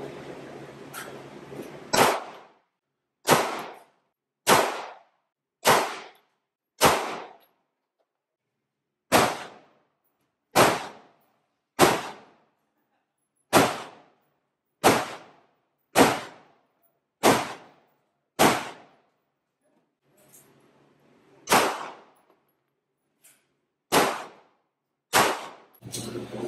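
Pistol shots in an indoor shooting range: about seventeen single shots, roughly one a second with a short pause about two-thirds of the way through, each a sharp crack with a brief ringing echo.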